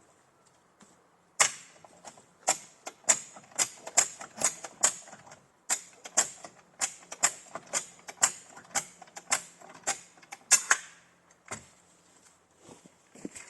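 Hand-operated ratcheting recovery gear being worked to lift or pull a Lada Niva that is stuck on its belly. It gives a run of sharp metallic clacks, about two a second, with a brief pause about five seconds in and a few more scattered clacks near the end.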